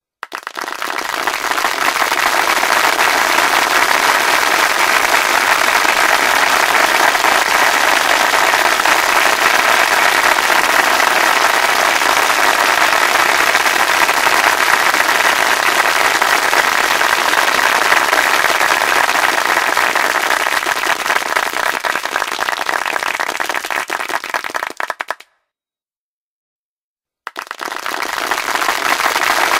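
Crowd applauding: dense, steady clapping that stops abruptly for about two seconds near the end, then starts again.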